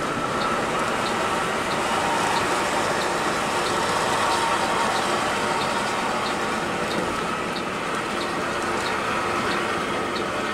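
Steady road and engine noise of a Mercedes-Benz 1626 coach under way, with a light tick repeating about every two-thirds of a second.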